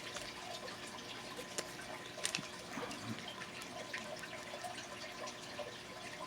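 Faint scattered clicks and light clinking of small pieces of costume jewelry being handled, over a faint steady background hiss.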